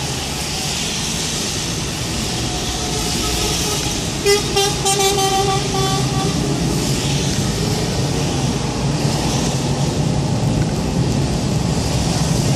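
Steady road noise of a car driving on a wet road, with tyre hiss and engine hum. About four seconds in, a vehicle horn sounds: a short toot, then a steady honk lasting a couple of seconds.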